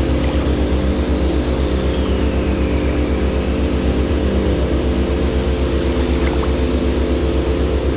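An engine running steadily with a regular low throb several times a second and a steady hum above it, over a rushing-water hiss.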